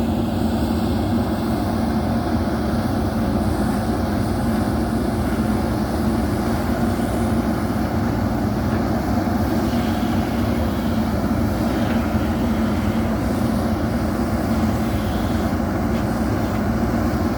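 JCB backhoe loader's diesel engine running steadily under work, an even low drone with no let-up.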